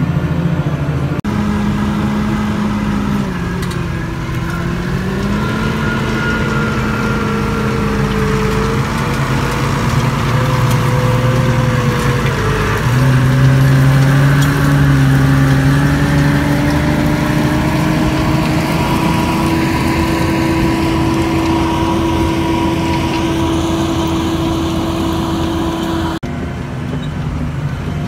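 Tractor diesel engine running under load while ploughing, its pitch dipping twice and then climbing slowly and steadily.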